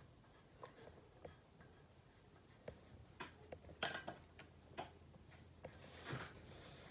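Faint scratching of a pencil drawing on paper, in short, irregular strokes, most of them in the second half.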